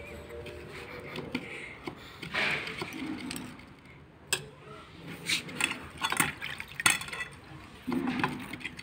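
A small child's hands splashing in a steel pan of water and working dough in a steel bowl, with a run of sharp clinks and knocks from the steel pans in the second half.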